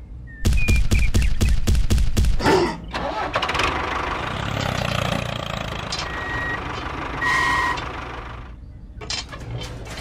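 A tractor engine starts: a rapid run of chugs about half a second in, then it runs steadily. Two short beeps sound about six and seven seconds in, and light clicks follow near the end.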